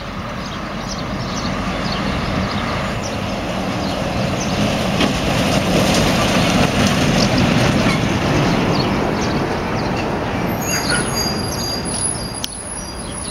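A heavy vehicle passing: its engine and tyre rumble swells to a peak midway and then fades away. A few short high squeaks and a sharp click come near the end.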